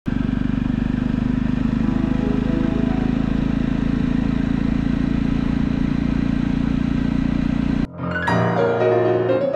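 Jawa motorcycle's single-cylinder engine running steadily with a fast, even pulse. It cuts off suddenly about eight seconds in, and piano music begins.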